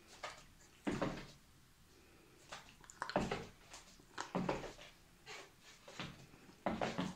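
Hard rubber squeaky dog ball squeaked over and over as a puppy jumps and bites at it, a string of short squeaks roughly one a second.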